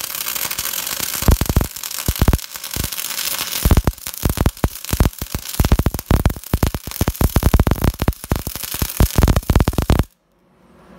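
MIG welding arc on 3 mm aluminium plate: a steady hiss with dense, irregular crackling pops, cutting off abruptly about ten seconds in when the arc stops.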